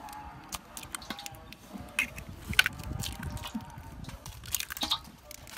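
Eggs being cracked and their shells pulled apart by hand over a stainless steel bowl: a series of sharp, crunchy shell cracks, the loudest a little past halfway.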